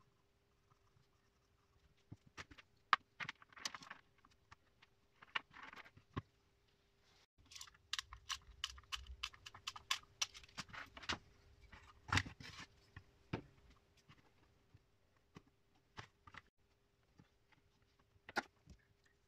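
Hands clearing small radio parts off a desk: irregular clicks, clinks and knocks as screws, sockets and an old air variable capacitor are picked up and set down. A denser stretch of rubbing and scraping comes in the middle, and a faint steady hum runs underneath.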